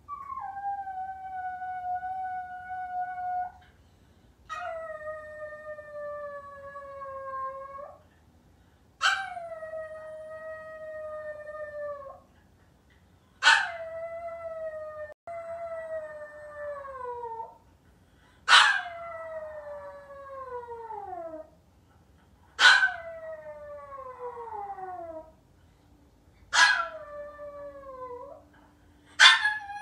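Maltese dog howling: a run of about eight long howls of a few seconds each with short pauses between. The first ones hold a steady pitch, the later ones start sharply and slide downward. It is a dog left home alone, calling at the top of its voice for its absent owner.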